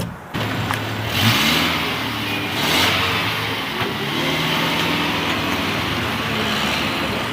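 Engine of a 2.4-litre Liebao Black King Kong four-wheel-drive SUV running, revving up briefly about a second in, then running steadily.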